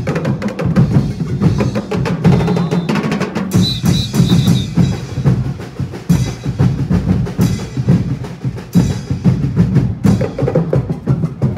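Drum-and-percussion music: bass drums, snare drums and wood-block clacks playing a steady, driving beat without a break.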